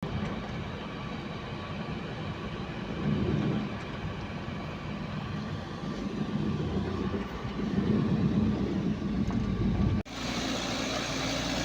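A heavy vehicle engine running with a steady low rumble; the sound breaks off abruptly about ten seconds in and a steadier engine hum follows.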